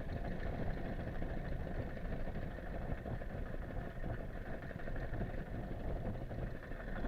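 Fishing boat's engine running steadily as a low rumble, with strong wind buffeting the microphone.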